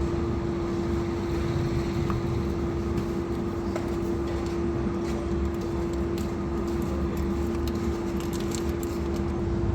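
A steady machine hum at one constant pitch over a low rumble, with a few faint clicks.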